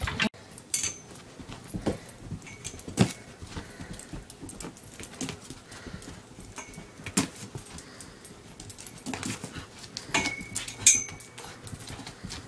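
A dog scrambling round and round after its own leash on a carpeted floor: scattered paw scrabbles, knocks and thumps, the loudest about three, seven and eleven seconds in, with a few brief high squeaks.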